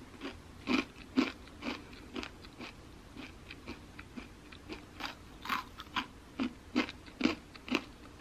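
Close-up crunching as a crisp black sesame whole-wheat protein chip stick is bitten and chewed, about two crunches a second, with the loudest ones in the first second and again in the second half.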